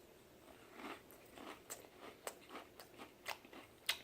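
A mouthful of Pringles potato crisps being chewed, with several sharp crunches over quieter chewing.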